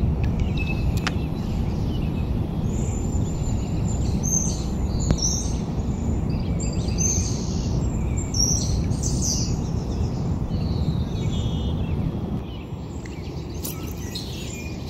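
Songbirds chirping and singing, many short high calls, over a steady low rumble that drops away about twelve seconds in.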